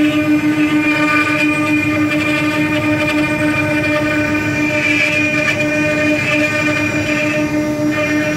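Multi-spindle 4-axis CNC wood router carving wooden balusters. The spindles run with a steady whine over the noise of the cutters working through the wood.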